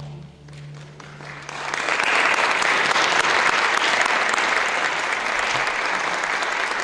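The last low chord of the string orchestra dies away, then an audience breaks into applause about a second in, building quickly to steady, loud clapping.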